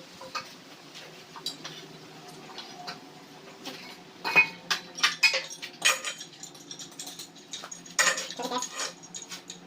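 Irregular metallic clinks and knocks of hardware being handled, over a faint steady engine hum.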